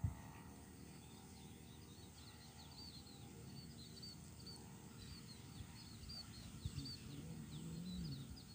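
Small birds chirping faintly: a steady run of short, high, repeated calls over a low background.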